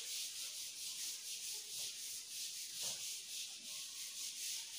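Whiteboard duster wiped across a whiteboard in quick back-and-forth strokes, a rhythmic hissing rub.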